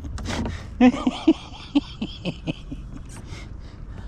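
A person's voice making short non-speech sounds: a loud one about a second in, then a quick run of brief ones.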